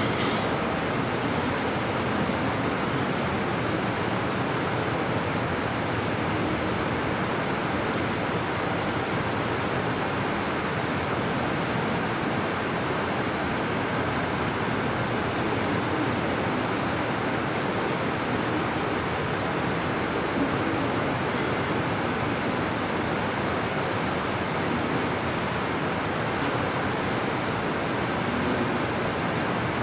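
Steady, even hiss-like room noise with no speech and no distinct events.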